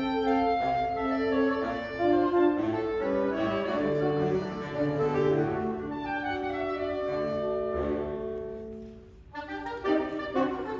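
Saxophone quartet of soprano, alto, tenor and baritone saxophones playing live in held chords. About nine seconds in the sound dies away briefly, and the quartet comes back in with shorter, detached notes.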